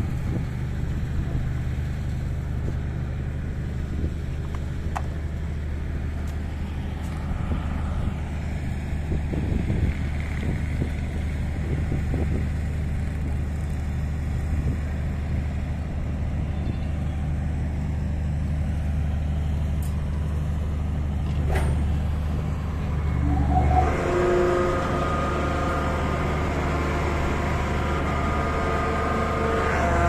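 The engine of a hydraulic static pile driver's power pack runs steadily with a low, even hum. About three-quarters of the way through, background music comes in over it.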